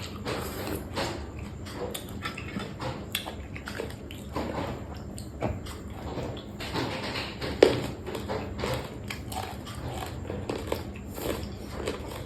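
Close-up eating sounds: chewing and biting a mouthful of shrimp with spicy papaya salad, with irregular wet crunches and mouth clicks and one sharp crack a little past halfway.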